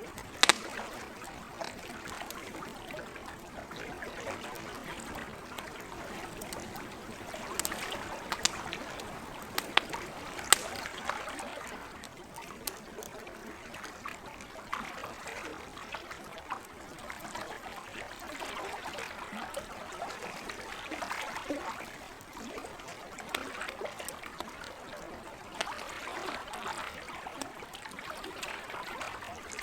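Campfire crackling with sharp pops over the steady trickle and lapping of lake water. The loudest pops come just after the start and several between about 7 and 11 seconds in.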